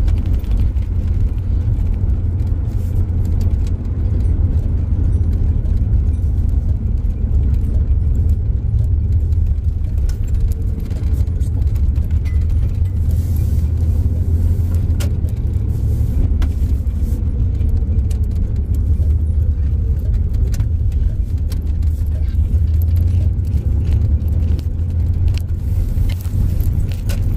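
Steady low road and engine rumble of a van driving at road speed, heard from inside the cabin, with small ticks and rattles throughout.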